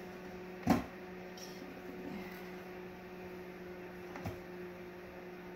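Apple pieces dropped into the plastic feed chute of a food processor: a sharp knock about a second in and a softer one near the end, over a steady electrical hum.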